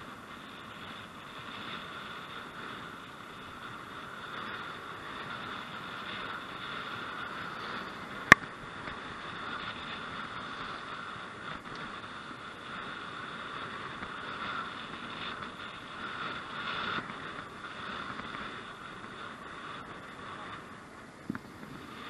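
Steady wind and road noise on the microphone of a moving rider's camera, a constant hiss with no engine or voices standing out. One sharp click about eight seconds in, and a smaller one near the end.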